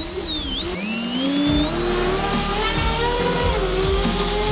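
Electric ducted fan of an RC airboat whining under power on a 4-cell battery. Its pitch dips briefly, then climbs steadily for a couple of seconds as the throttle is opened, and eases off slightly near the end.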